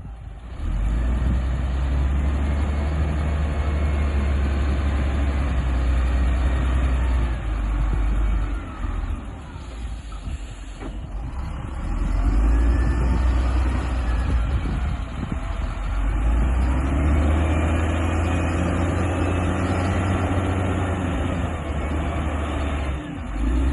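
Large diesel engine of heavy construction machinery running steadily, with a quieter dip about ten seconds in.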